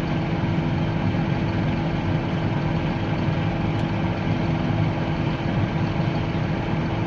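A heavy farm vehicle's engine running steadily, with a constant low hum and no change in speed.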